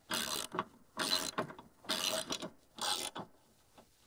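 Socket ratchet wrench clicking through four short back-and-forth strokes, about one a second, as it turns a bracket bolt on a steel canopy mount.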